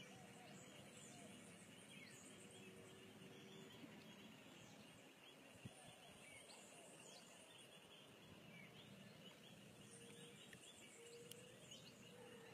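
Near silence: faint outdoor ambience with scattered distant bird chirps.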